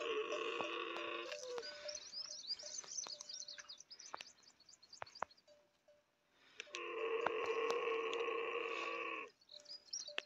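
Camel calling: a long, steady bleating call at the start and another longer one about seven seconds in, each ending abruptly. High, quick bird chirps fill the stretch between them.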